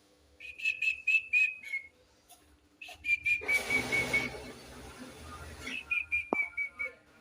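A murai songbird giving runs of short, clear whistled notes on one pitch, repeated quickly in three bursts. A rustling hiss sounds under the middle burst.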